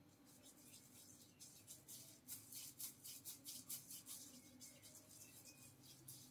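Faint rubbing of hands massaging a creamy hair mask into a beard, a run of soft quick strokes that is densest in the middle.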